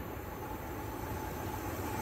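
E.494 electric locomotive approaching at the head of a freight train: a distant rumble of wheels on the rails, growing slowly louder, with a faint steady tone coming in about half a second in.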